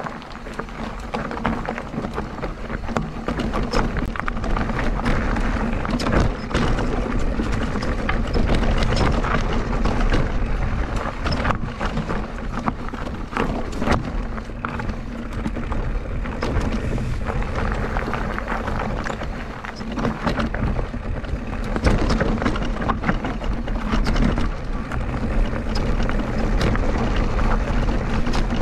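Mountain bike riding a rough trail: tyres rolling and crunching over dirt and stones, with the bike rattling and clattering continuously and wind buffeting the microphone.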